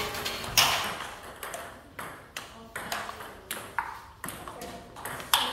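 Table tennis rally: a string of sharp clicks as bats strike the celluloid-type ball and it bounces on the table, about two a second.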